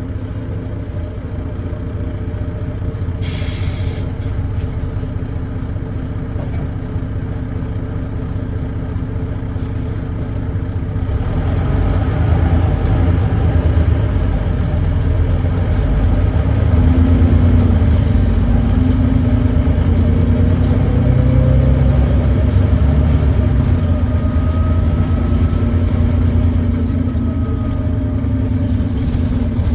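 Volvo D9B 9.3-litre diesel in a Volvo B9TL double-decker bus, heard from on board, running with an exhaust leak and thrash. About three seconds in there is a brief hiss of compressed air. From about eleven seconds in the engine pulls harder and grows louder, with a rising drivetrain whine.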